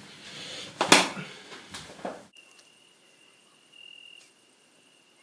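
Noisy, close movement sounds with one sharp, loud knock about a second in. Then, after a sudden drop, crickets chirping in a faint, steady high trill.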